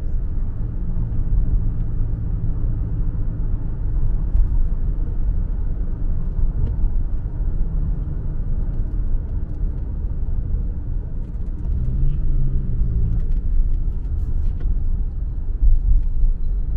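Taxi cabin noise while driving at speed: a steady low rumble of tyres and engine, with the engine note briefly bending up and down about twelve seconds in.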